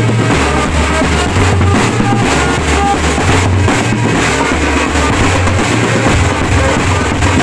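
Drum band music playing continuously: a heavy bass drum beat with snare, under a melody line of short notes.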